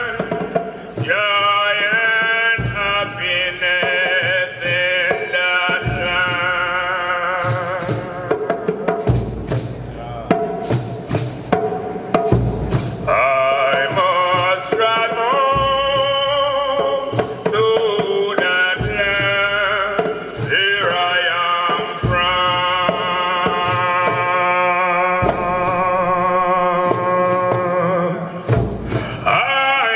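A man singing long, wavering chant-like notes into a microphone, backed by a group of Rastafarian hand drums beating a steady rhythm.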